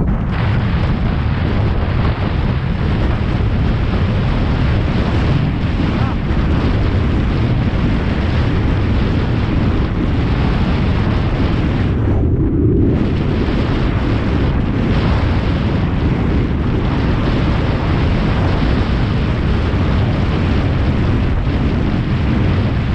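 Heavy wind buffeting the microphone, a loud steady rumble as from riding a bicycle at speed, with a brief lull about twelve seconds in.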